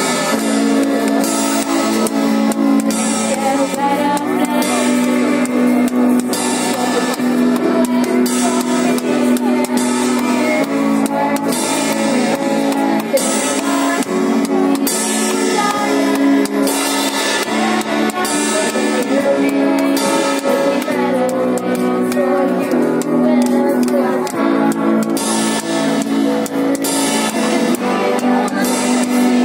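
Music with guitar and drums playing continuously, with a cymbal struck in time with the beat.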